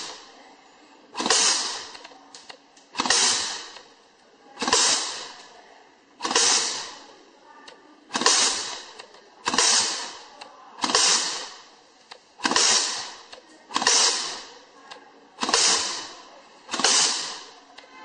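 Semi-automatic side-feed wire stripping and crimping machine (WPM 2008A2) cycling. Each stroke is a sharp crack that trails off in a hiss over about a second. The strokes repeat about every second and a half, each one stripping and crimping a fed bundle of wires.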